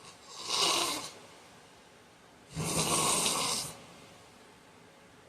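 A sleeping man snoring: a shorter breathy sound about half a second in, then a pitched snore lasting about a second near the middle, part of a regular cycle of about one breath every five seconds.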